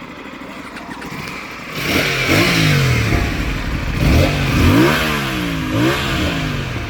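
Aprilia Tuono 457's parallel-twin engine running low, then revved repeatedly from about two seconds in, its pitch climbing and falling back several times.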